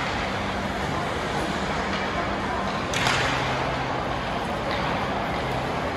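Ice hockey rink during play: a steady wash of rink noise with a low hum, and one sharp crack about three seconds in from the puck or a stick.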